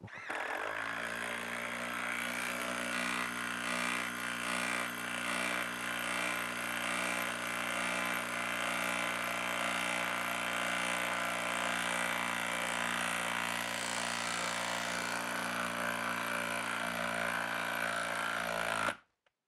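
Hilti brushless cordless impact driver hammering continuously as it drives a 4-inch lag screw into a wooden log with no pilot hole, working steadily under heavy load. It runs for about nineteen seconds and then stops suddenly as the screw seats.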